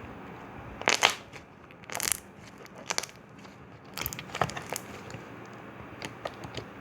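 Homemade slime being squeezed and pressed by hand, giving a few short crackling, squishing bursts about once a second.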